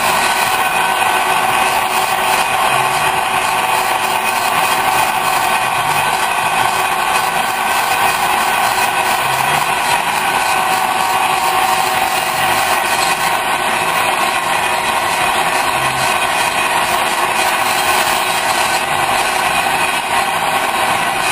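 Large metal lathe running under a cut, a high-speed steel tool turning a brake hat, with a steady drone and machine whine that holds even throughout.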